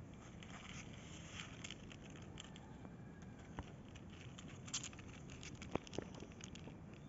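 Young kittens' paws and claws scratching and shuffling on the cardboard floor of a box as one crawls over the others: faint scattered ticks and rustles, with a few sharper clicks in the second half.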